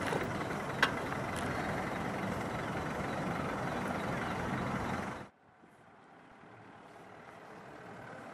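A four-wheel-drive vehicle running as it tows a boat trailer: a steady, noisy rumble with one click about a second in. The rumble cuts off abruptly about five seconds in, leaving a much quieter hiss.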